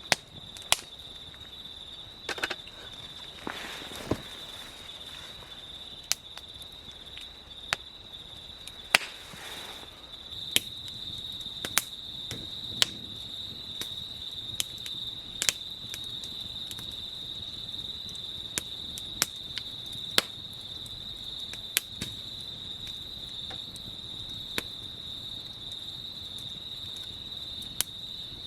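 Steady high-pitched chorus of crickets or similar insects, with sharp clicks or snaps scattered irregularly through it.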